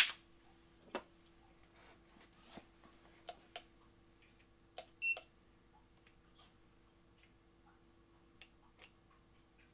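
A sharp metallic click from a Smith & Wesson M&P 2.0 pistol being handled, then scattered faint clicks of handling. About five seconds in comes a short electronic beep from a digital trigger pull gauge being readied for the next trigger-weight measurement.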